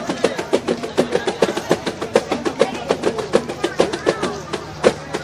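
Background music with a fast, steady percussion beat and a voice over it.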